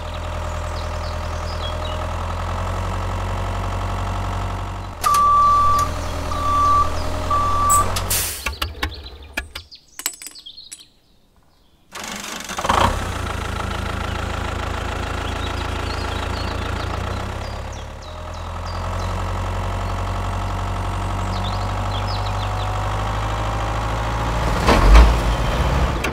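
Heavy tractor engine running steadily at a low idle. About five seconds in come three short high beeps, then the engine sound stops for a couple of seconds before running again.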